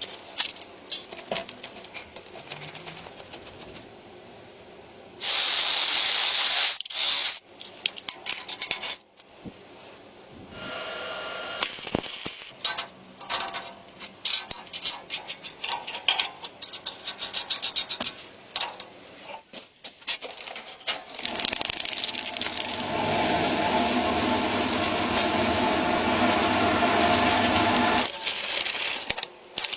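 Workshop work on metal parts: scattered clicks and knocks of metal being handled, with a small power tool or motor running in stretches. The longest stretch is a steady run of about seven seconds near the end.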